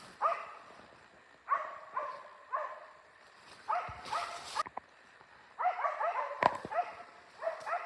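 West Siberian Laika hunting dogs barking repeatedly in clusters of short barks, baying at a black bear they have treed. A couple of sharp clicks cut through the barking past the middle.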